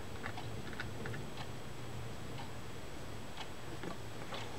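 Faint, irregular light metal clicks from the handle and handle nut of a Penn Jigmaster fishing reel being fitted back on by hand during reassembly.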